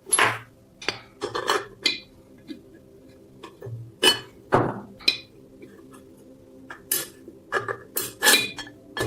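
Small hard metal pieces clinking and knocking as they are handled, in irregular clusters of sharp clicks with a brief ring.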